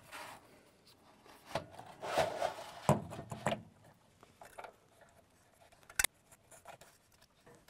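Air filter element and end cover being handled and fitted into the Liebherr R942HD excavator's air filter housing: rubbing and scraping with a few knocks up to about three and a half seconds in, then a single sharp click about six seconds in.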